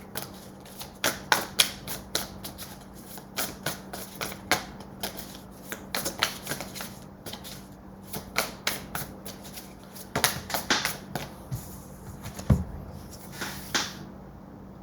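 A tarot deck being shuffled by hand: a long, irregular run of quick papery card clicks and flicks that stops shortly before the end, with a single dull thump about twelve seconds in. A faint steady low hum lies underneath.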